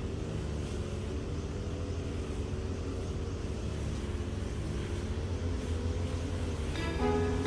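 Steady low rumble of road traffic, with no single event standing out. Background music comes back in near the end.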